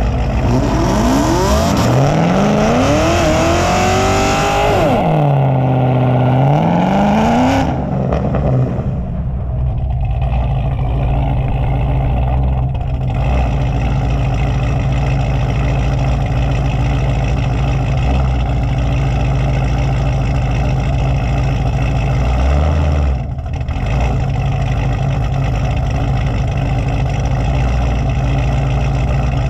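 A cammed Camaro SS V8 revs hard with its pitch rising and falling for about eight seconds, then settles into a steady idle.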